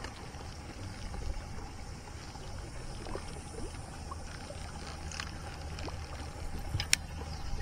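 A boat motor runs with a steady low hum and a thin steady whine above it. There are faint scattered ticks, and one sharp click comes about seven seconds in.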